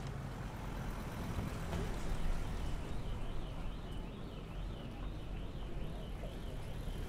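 Steady low rumble of city traffic, with a faint high warbling tone for a few seconds in the middle.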